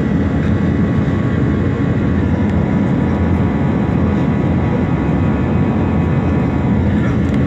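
Jet airliner cabin noise in flight, heard from a window seat: a loud, steady drone of engines and rushing air, with a faint steady high whine over it.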